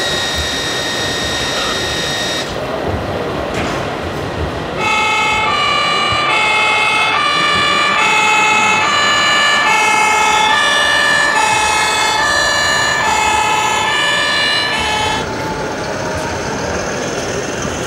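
RC model fire engine's sound module playing a two-tone siren, its high and low notes alternating steadily over background noise. The siren follows a steady single tone in the first couple of seconds.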